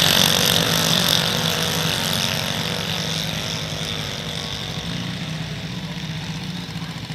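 Junior dragster's single-cylinder engine running, fading steadily as the car moves away down the track.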